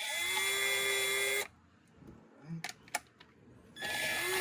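Handheld power drill-driver running in two short bursts, each about a second and a half, its motor pitch rising as it spins up and then holding steady, as it backs out the screws holding a garbage disposal's discharge fitting.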